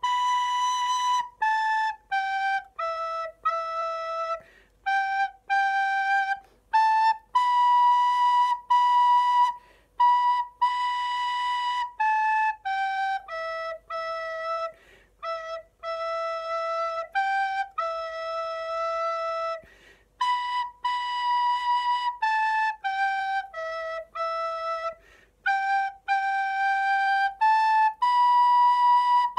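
Soprano recorder playing a simple solo melody on the four notes B, A, G and E, each note tongued separately, with short breaks for breath between phrases.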